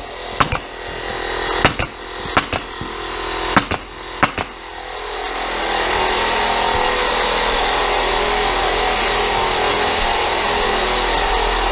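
Pneumatic nailer firing nails into laminate flooring along a wall, a sharp shot about once a second, some in quick pairs. About five seconds in, a steady motor noise rises and runs on, an air compressor kicking on to refill.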